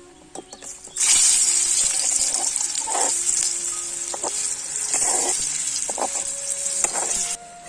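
Food sizzling in hot oil: a loud, steady hiss that starts abruptly about a second in and cuts off abruptly near the end, with a few light knocks within it.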